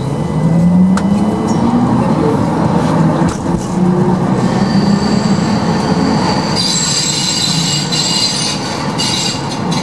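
Ganz tram under way, heard from inside the car: a low motor whine rises in pitch as it picks up speed. From about halfway, high-pitched wheel squeal joins in and is strongest near the end.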